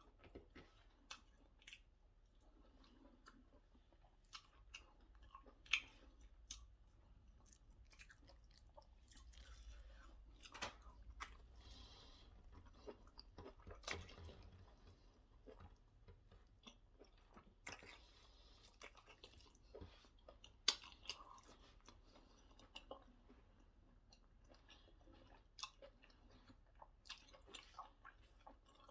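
A person chewing white starch with egusi soup: soft wet chewing broken by scattered sharp mouth clicks and lip smacks at irregular intervals.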